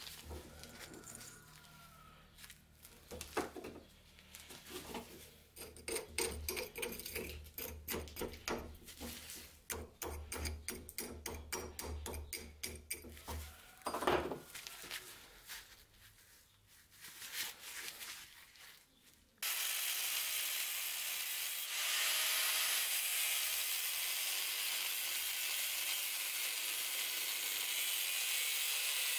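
A hand-forged steel hammer head is handled in a metal bench vise, making scattered clicks and knocks and a quick run of ticking. About two-thirds of the way through, an angle grinder starts abruptly and runs steadily, grinding into the steel head. It grows louder a couple of seconds later as the disc bites.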